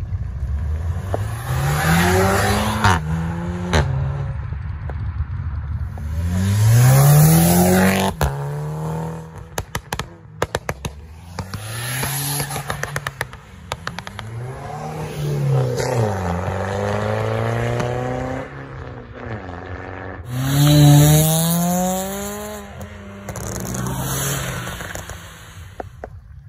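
Several cars in turn accelerating hard away, each engine revving up with a rising pitch that drops back at each gear change. A quick string of sharp cracks comes about a third of the way through.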